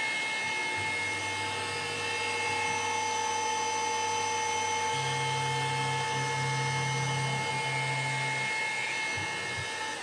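Milling machine spindle running an end mill through an aluminium block: a steady whine with several fixed high tones over a hiss of cutting noise.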